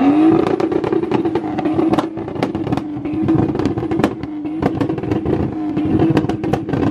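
Third-generation Toyota Supra Turbo revved onto its two-step launch limiter. The revs climb at the start and then hold at one steady pitch while the exhaust crackles and pops in a rapid, uneven stream.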